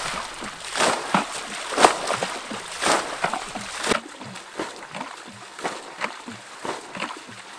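Muddy water splashing as a plastic bucket is scooped through a shallow ditch and its load thrown out, bailing the ditch dry, with a loud splash about once a second. After about four seconds the splashes turn softer and more distant.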